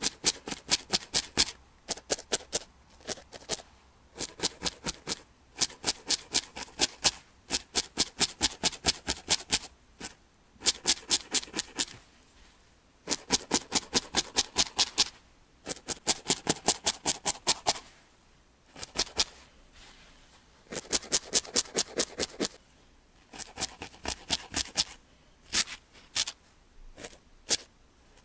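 Felting needle stabbing repeatedly into a dense wool felt ball, crisp rapid pokes at about six a second, in runs of a second or two with short pauses between.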